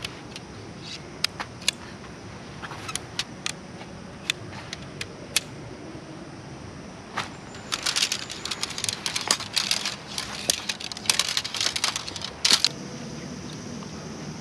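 Aluminium tent poles of an MSR Elixir tent clicking as shock-corded sections snap together, then a dense metal clinking and rattling as a bundle of pole sections is handled, from about eight seconds in until it stops short of thirteen seconds.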